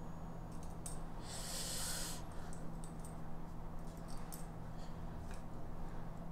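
Faint small clicks of an Allen wrench turning the set screw in a brass slide-bar wall mount, over a steady low hum. There is one short hiss about a second and a half in.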